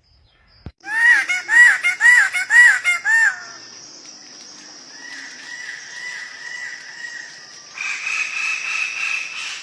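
A bird calling: five loud rising-and-falling notes about two a second, followed by a steady high buzz with a softer wavering call and a held whistle-like tone, cutting off suddenly near the end.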